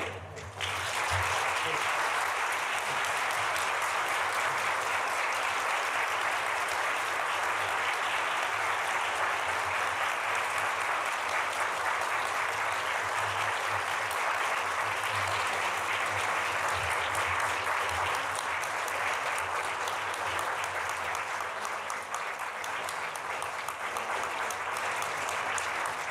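Audience applauding: a long, steady round of clapping that starts about half a second in and eases off slightly near the end.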